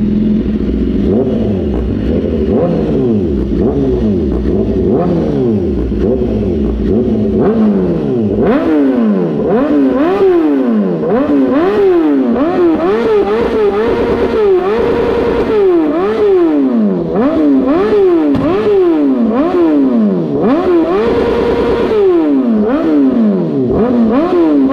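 2014 BMW S1000RR's inline-four engine, breathing through an Akrapovič full system with a replica SC-Project end can, revved in repeated quick blips about once a second. The revs climb higher from about eight seconds in, and a couple are held briefly near the top.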